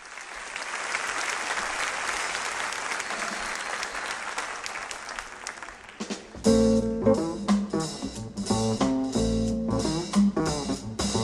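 Audience applause that slowly fades over about six seconds. Then a jazz guitar duo with bass starts playing, with distinct plucked guitar notes over deep bass notes.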